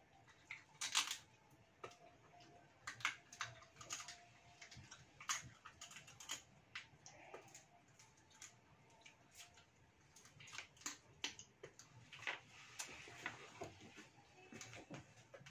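Irregular faint clicks and crackles of fried mantis shrimp shells being cracked and peeled by hand and crunched while eating.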